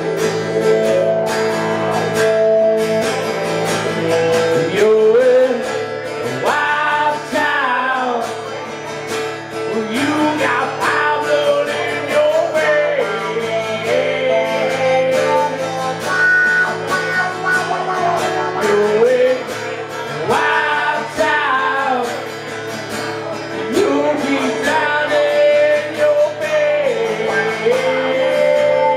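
Two acoustic guitars played live together, chords with melodic lines over them.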